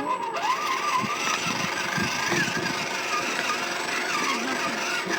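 RC crawler truck's motor and gearing whining, the pitch rising and falling with the throttle, with rattling and knocks as the truck bumps over rough ground, heard from a microphone riding on the truck's bumper.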